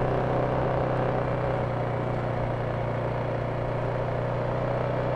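Polaris Sportsman 570 ATV's single-cylinder engine running at a steady speed while riding, its note holding even in pitch and level.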